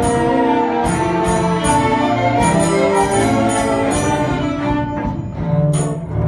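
String orchestra with a solo double bass playing a concertino, live, in a steady rhythm of accented notes about three a second. About five seconds in, the texture thins and low held notes come to the fore.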